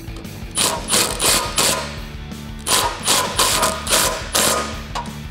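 Cordless impact wrench hammering in a series of short trigger bursts, driving 19 mm mounting bolts tight, with a brief pause about two seconds in. Background music plays underneath.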